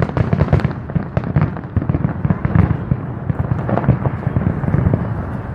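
Fireworks going off in a rapid, irregular volley of bangs and crackles, dense at first and thinning out near the end.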